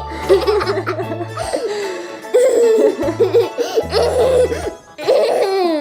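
A young girl laughing and giggling in short bursts, over background music with a low bass line.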